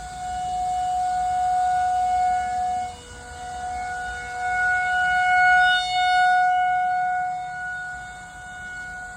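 Outdoor tornado warning siren sounding a steady wail at one pitch, swelling and fading in loudness, with a brief dip about three seconds in and the loudest stretch a little past halfway.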